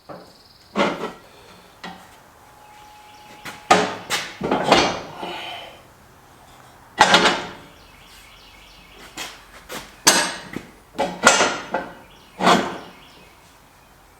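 Heavy steel parts of a sawmill frame knocking and clanking as they are shifted and worked into alignment for bolting: about ten separate sharp knocks at uneven intervals, several in quick pairs.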